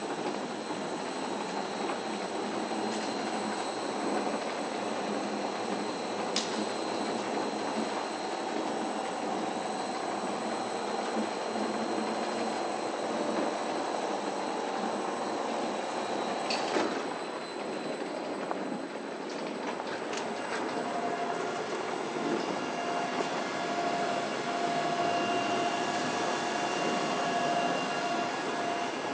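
Wulftec SMLPA-150 stretch-wrap pallet wrapper running: a steady mechanical whir with a couple of sharp clicks, and a steady whine that comes in about two-thirds of the way through.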